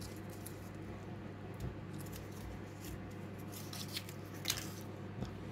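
Foil capsule being peeled off the neck of a sparkling wine bottle: a few faint clicks and crinkles, the sharpest about four and a half seconds in, over a low steady hum.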